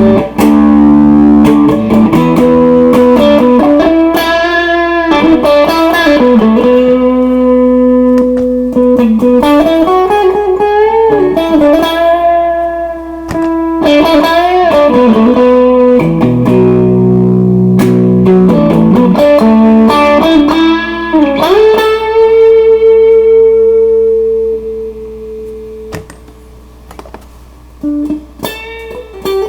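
Electric guitar playing a lead line with string bends and long held notes, through Behringer CS400 Compressor Sustainer and TO800 Vintage Tube Overdrive pedals. The playing dies down near the end, with a few short notes.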